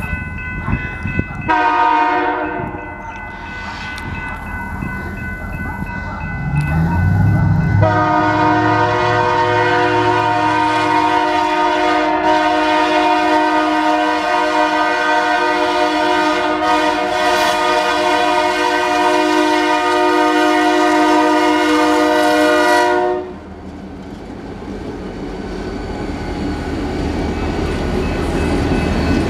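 A grade-crossing bell rings, and the lead diesel locomotive's air horn sounds about a second and a half in, then blows one long, loud blast from about 8 s to about 23 s before cutting off. After that, the two BNSF diesels (a GP28-2 and an SD40-2) and their wheels on the rail rumble past, growing louder.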